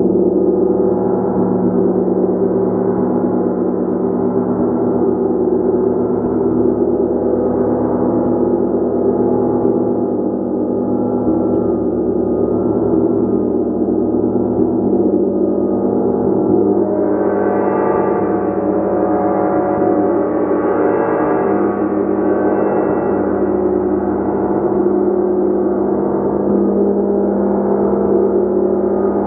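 A gong played continuously: a sustained, dense wash of many overlapping tones. About seventeen seconds in the sound swells and brightens as higher overtones come up, then settles back.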